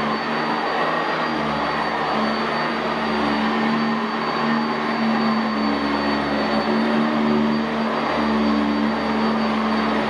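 Sanitaire SC679J commercial upright vacuum cleaner running as it is pushed over carpet, its brush roll sweeping the pile. The motor keeps a steady hum with a thin high whine, and the low hum shifts a little in pitch as the vacuum moves.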